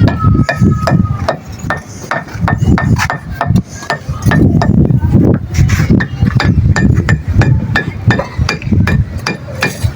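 Building-site hand-tool work: irregular sharp knocks and metallic clinks, a few a second, over a low background rumble.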